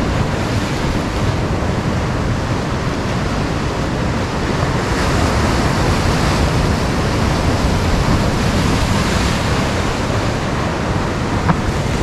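Ocean surf breaking and washing over jetty rocks, a steady loud rush of white water, with wind buffeting the microphone. A single short click comes near the end.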